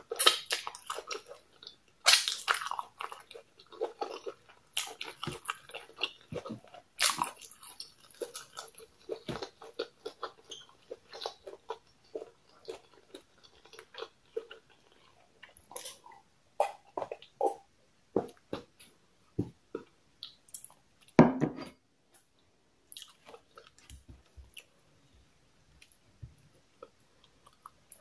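Close-miked chewing and biting of poundo yam, okra soup and goat meat eaten by hand, a steady run of short wet mouth clicks. There is a sip from a glass of water about halfway through, and one louder low thud a little past three-quarters of the way.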